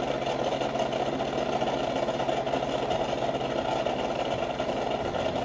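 Mars Flavia Aroma single-serve brewer running with a steady mechanical hum as it dispenses frothed milk from a milk-froth pack into a glass mug, the first stage of a cappuccino.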